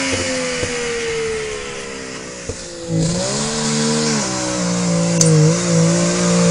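Suzuki Jimny's engine running on the move, its pitch sinking slowly for the first three seconds, then rising sharply about three seconds in and holding, over a steady rush of road and wind noise.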